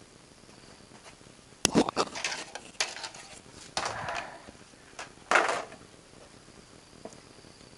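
A run of sharp knocks and clattering handling noises with two or three short scraping sounds, starting about a second and a half in and stopping about two seconds before the end.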